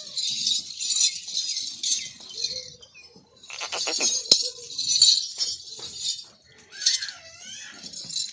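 Makhi Cheeni goats with a few short bleats over rustling and a run of clattering knocks.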